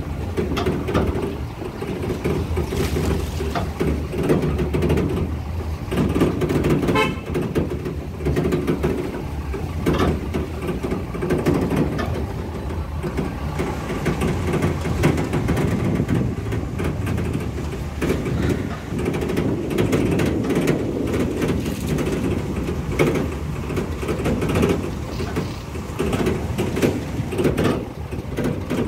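A car driving slowly over a rough dirt track, heard from inside: a steady low engine and road rumble with frequent knocks and rattles as it rides the bumps.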